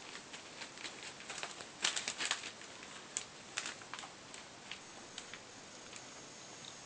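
Faint scattered ticks and rustles of a young puppy's paws and claws shifting on newspaper spread on the floor, busiest about two seconds and again about three and a half seconds in.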